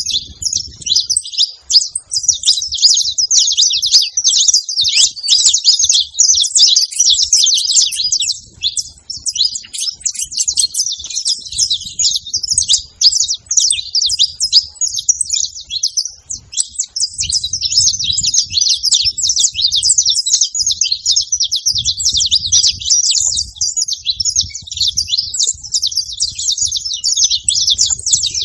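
Saffron finch singing: a long, unbroken run of rapid high chirps and trills.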